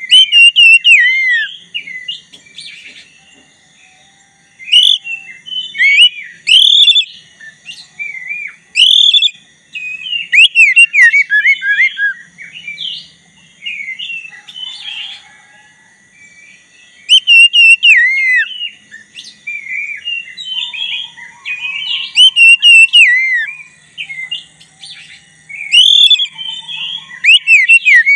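Black-breasted Oriental magpie-robin (kacer dada hitam) in full, vigorous song. It gives bursts of rich, fast whistled phrases and chirps, each a couple of seconds long, with short pauses between them, about six bursts in all.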